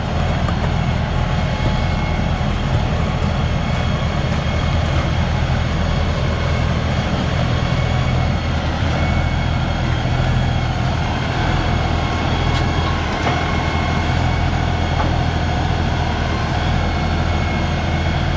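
A 42 hp LS compact tractor's diesel engine running steadily as the tractor drives along.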